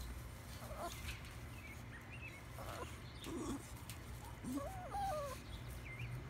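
Small dog whining in a few short, wavering whines, the longest and loudest about five seconds in, over a low steady hum with small high chirps of birds.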